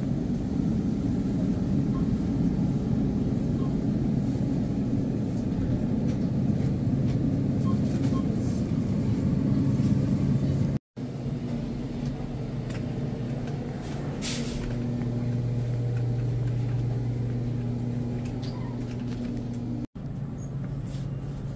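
Steady low hum of a store's refrigerated display cases and freezers. The hum drops out for an instant twice.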